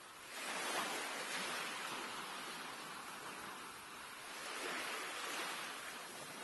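Sea waves washing in as a steady rush of surf, swelling about a second in and again around five seconds in.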